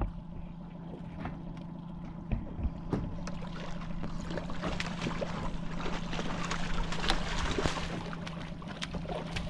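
A large hooked Lahontan cutthroat trout splashing and thrashing at the surface beside the boat as it is netted, the splashing building from about three seconds in and easing near the end. Under it, the steady hum of the boat's outboard motor runs throughout.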